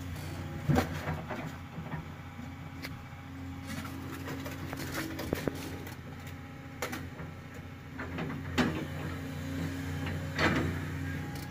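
Scrap metal clanking and banging several times as an excavator bucket grabs the load off a trailer, over a diesel engine running steadily.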